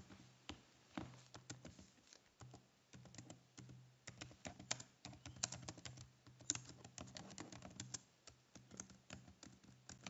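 Computer keyboard typing, faint: quick, irregular key clicks coming in runs of several keystrokes.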